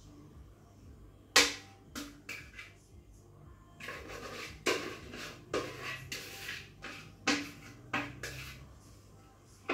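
A spatula scraping cake batter out of a mixing bowl into a springform tin. There is a sharp knock on the bowl about a second and a half in, a few lighter taps, then a run of scrapes and taps through the second half.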